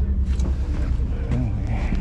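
Steady low rumble of the fishing boat's engine running, with an even pulse.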